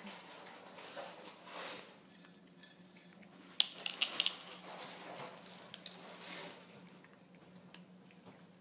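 Shih Tzu puppy eating dry kibble off a plastic placemat: small hard clicks and light rattling of kibble, with a cluster of sharp clicks about halfway through.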